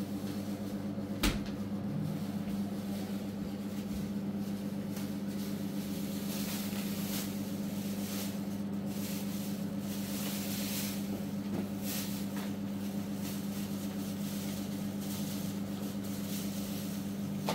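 Refrigerator door shutting with a single sharp knock about a second in, over a steady low electrical hum. Later, soft scratchy rustles as boiled eggs are peeled by hand.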